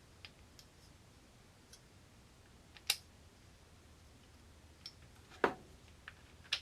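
Scattered sharp metallic clicks and clinks from handling an oscillating multi-tool's blade and mounting hardware as a blade is fitted by hand. There are about half a dozen, the two loudest about three seconds in and about five and a half seconds in.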